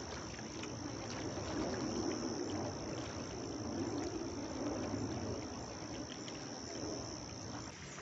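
An insect buzzing in one steady high-pitched note that stops shortly before the end, over a low rushing background noise.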